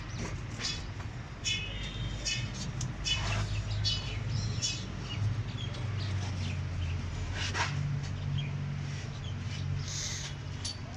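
Small birds chirping in short, repeated high-pitched calls, mostly in the first half, over a steady low hum. A single sharp click comes about two-thirds of the way through.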